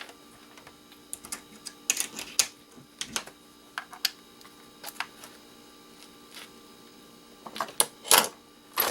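Irregular clicks and light knocks of small plastic and metal electronic scrap parts and tools being handled, over a faint steady hum. A louder cluster of knocks comes near the end.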